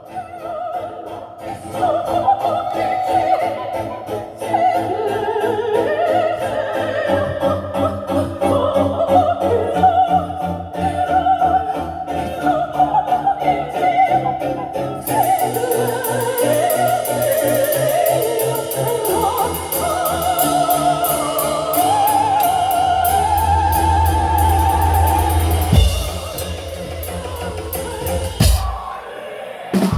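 Live metal band music with an operatic voice singing a wavering melody with vibrato over the band. Fast drumming joins about halfway through, and the music breaks off briefly near the end.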